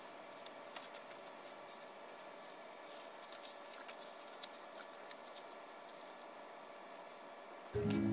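Faint, scattered taps and rustles of photo prints and cardstock pages being handled and laid down on a wooden desk. Music starts near the end.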